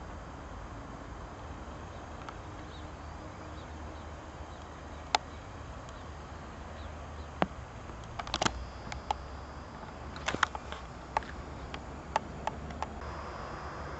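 Steady low background noise broken by sharp clicks: a single one about five seconds in, then an irregular run of a dozen or so in the second half.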